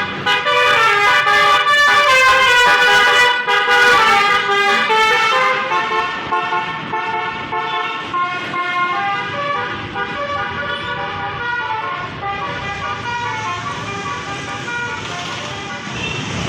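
A bus's basuri musical air horn playing a melody of held notes that step from pitch to pitch. It is loud for the first five seconds or so, then carries on more quietly.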